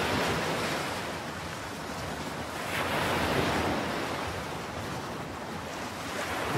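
Sea waves washing up on a sandy beach: a steady rushing surf noise that swells about three seconds in.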